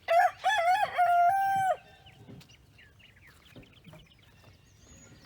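Rooster crowing once: a few quick wavering notes ending on a long held note that cuts off after about two seconds. Faint small bird chirps follow.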